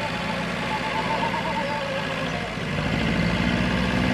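Engine of a vintage car running slowly as the car drives past at walking pace, getting louder about three seconds in.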